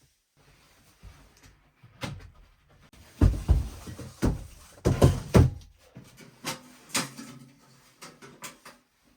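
A series of knocks, clunks and thumps of things being handled and set down inside a small cabin, heaviest in a cluster of deep thuds in the middle, with lighter clicks toward the end.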